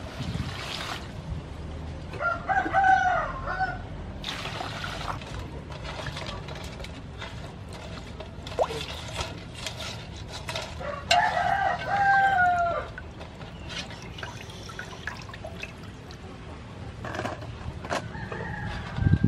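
A rooster crows twice, about two seconds in and again around eleven seconds, each a call of about a second and a half that falls away at the end, with a fainter crow near the end. Under it, water sloshes and drips as raw mantis shrimp are rinsed by hand in a large aluminium basin.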